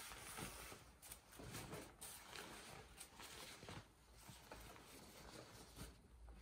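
Faint rustling of crisp cotton shirt and trouser fabric being handled, with a few soft clicks.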